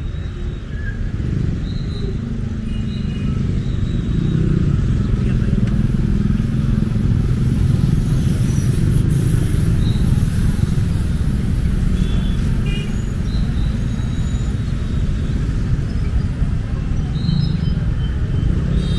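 Busy street traffic: motorcycle and car engines running as they crawl past close by, making a steady low rumble. Brief high-pitched tones come now and then.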